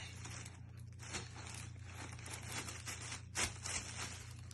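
Tissue paper rustling and crinkling as it is handled, in a run of irregular short crackles, the loudest about three and a half seconds in, over a low steady hum.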